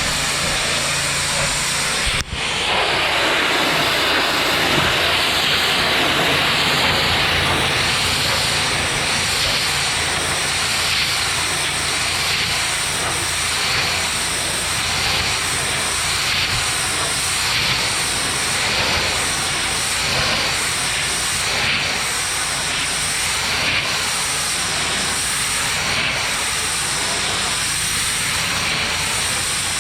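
Pressure washer wand spraying water onto a composite dock to strip algae: a steady, loud hiss that swells and fades about once a second from about eight seconds in, with a brief break about two seconds in.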